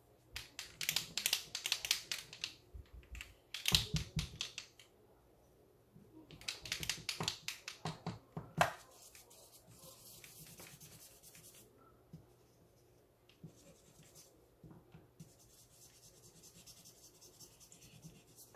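Blue marker scribbling back and forth on paper in quick scratchy strokes: several loud bunches of strokes in the first nine seconds, then softer, steadier rubbing.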